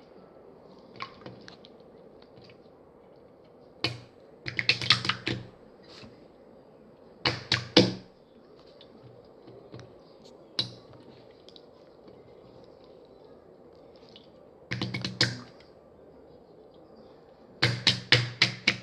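Slime being pressed and squeezed by hand, giving clusters of sharp popping clicks as trapped air bursts. The clusters come every few seconds.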